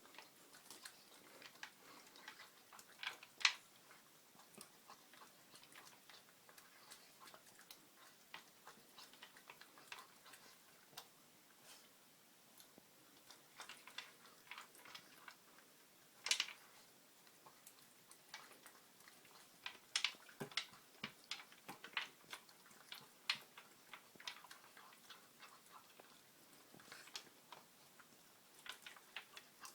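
Dog eating kibble from a slow-feeder bowl: many small, irregular clicks and taps of kibble against the bowl, with a few louder clacks now and then.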